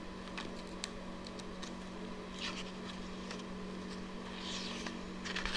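Steady low hum of room tone with a few faint clicks and soft rustles.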